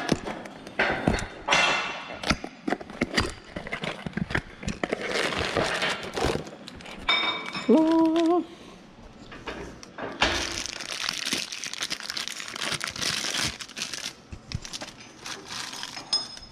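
A new wheel bearing being unpacked: wrapping and cardboard crinkling, with scattered knocks and clinks as the box and part are handled. A short rising tone sounds about eight seconds in.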